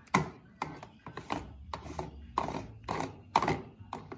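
Plastic fuel cap being turned onto a riding mower's fuel tank with a body-powered prosthetic hook, clicking repeatedly at about three clicks a second.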